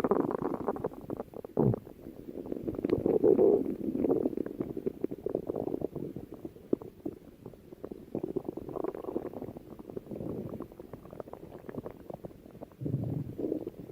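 A person's stomach growling: irregular gurgling rumbles that swell and fade, peppered with many small pops, with a deeper low rumble near the end.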